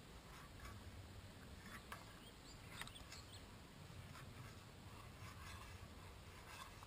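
Near silence, with faint scrapes and light ticks of a spoon stirring pasta in a small metal camp pot.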